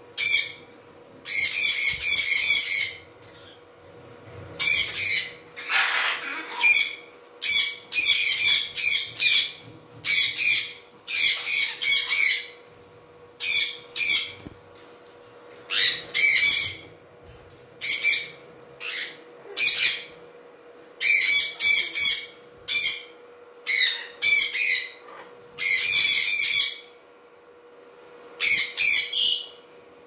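White cockatoo screeching over and over: loud, harsh calls, most about a second long, coming in quick runs with short pauses between them. A faint steady hum lies underneath.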